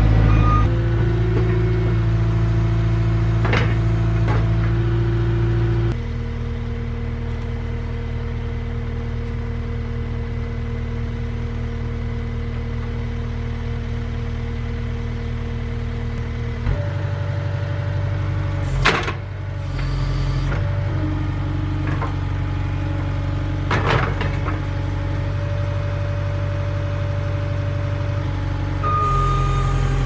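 Diesel engine of a Cat compact track loader idling. Its speed drops about six seconds in and picks up again about halfway through. Reversing beeps sound at the start and again near the end, and a few sharp metal clanks stand out.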